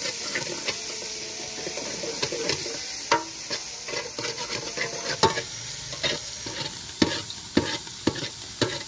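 A metal ladle stirs and scrapes chopped onions frying in oil in an aluminium pot. Irregular clinks and scrapes of the ladle against the pot ride over a steady sizzle.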